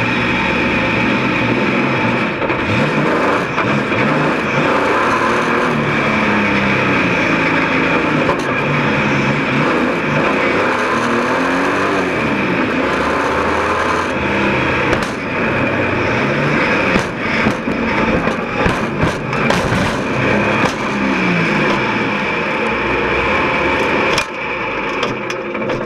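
Stockcar engine heard from inside the cockpit, revving up and down through the corners. In the second half come a string of sharp knocks and bangs from car-to-car contact, with a heavier crash near the end as the car is knocked onto its side.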